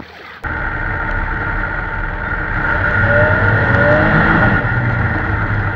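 Snowmobile engine running hard under way, starting abruptly about half a second in, its pitch rising a little around three seconds in.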